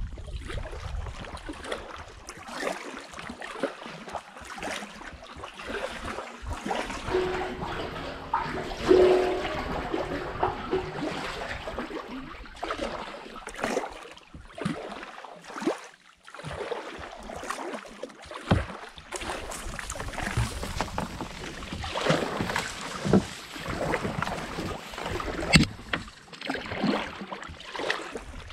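Kayak paddling: the paddle blades dip and splash in irregular strokes, with water dripping and trickling off the blades. A louder, brief pitched sound comes about nine seconds in.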